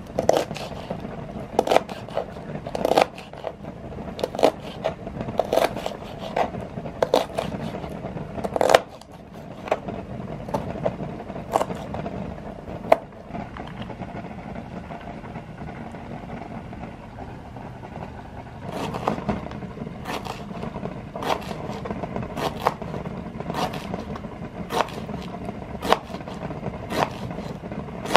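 Kitchen knife slicing vegetables on a plastic cutting board: steady cuts about one to two a second, dropping to a few scattered clicks for several seconds in the middle, then resuming at the same pace.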